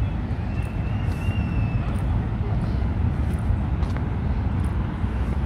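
Steady low rumble of city traffic, with a faint high steady tone for about a second and a half near the start.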